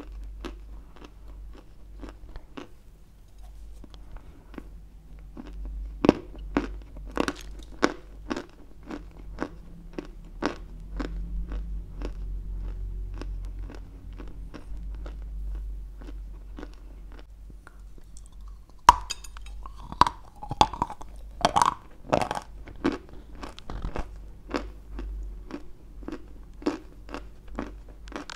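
Close-miked crunching and chewing of a lump of white Turkestan edible clay: a steady run of crisp, dry crunches, two or three a second, with a few louder, sharper bites about two-thirds of the way through.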